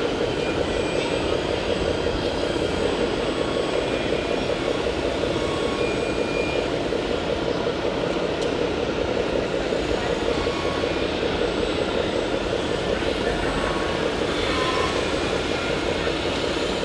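Radio-controlled model trucks running, a steady whir of small electric motors and gearboxes with no breaks.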